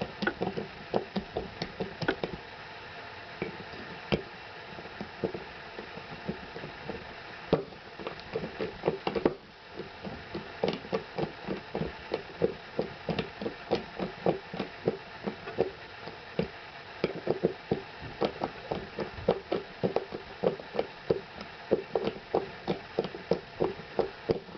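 A Phillips screwdriver worked by hand on screws in a wooden 2x4 whose heads are partly stripped, making repeated short clicks and knocks about two to three a second, with one louder knock about nine seconds in.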